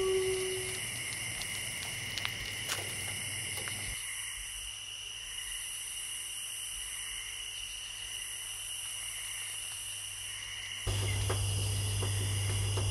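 Night insects chirring steadily in a high, even chorus. The tail of a howl fades out in the first second, and a steady low hum comes in near the end.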